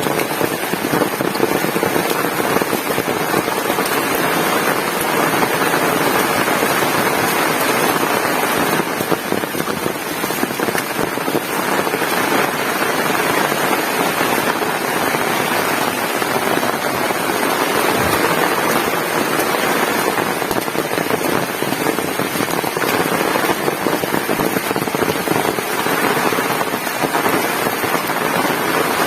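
Heavy rain falling steadily: a dense, even patter of drops on nearby surfaces.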